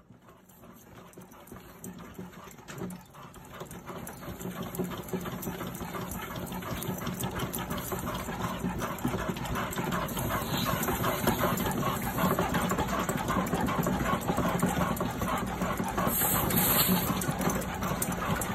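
Wooden-framed dog treadmill running under a trotting pit bull: a steady, fast clatter of belt, rollers and paws that grows louder over the first several seconds and then holds.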